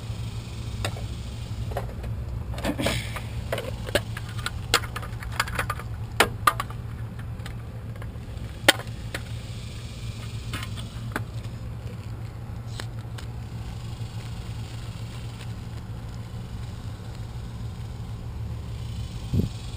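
Scattered small clicks and clinks of metal hardware and tools being handled, bunched in the first half with one sharp knock a little before the middle, over a steady low hum.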